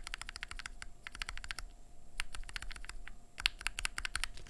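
Rapid typing on a mechanical keyboard fitted with BSUN Glacier Panda linear switches, in an aluminium-plate board with GMK keycaps, as a switch sound test. The keystrokes come in quick runs broken by two short pauses.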